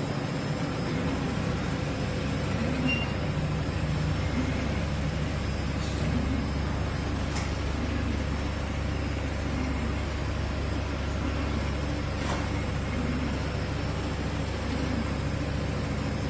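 Industrial multi-needle chain-stitch mattress quilting machine running: a steady low mechanical hum with a faint repeating churn and a few sharp clicks.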